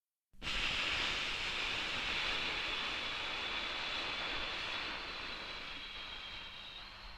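Long exhale sound effect: a steady, airy whooshing breath-out that starts about half a second in after silence and slowly fades, marking the eight-count exhale of 4-7-8 breathing.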